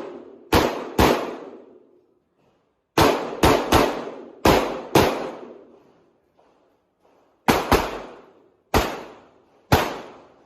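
Handgun gunfire on a practical shooting course: about eleven shots, mostly fired in quick pairs and triples with pauses between bursts, each shot ringing out and decaying.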